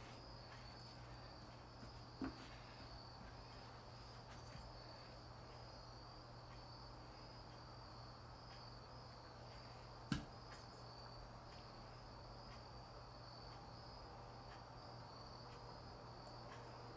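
Faint, steady chirping of crickets outside, a continuous pulsing trill, over low room hum. Two small knocks break in, a light one about two seconds in and a sharper click about ten seconds in.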